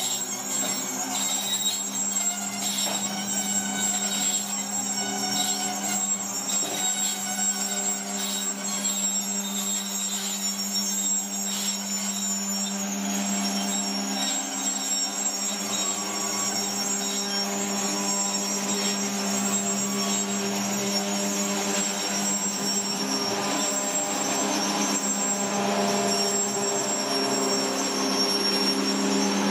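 Rhaetian Railway work train of flat wagons loaded with rails rolling slowly on the track, its wheels squealing with steady high tones over a steady low drone.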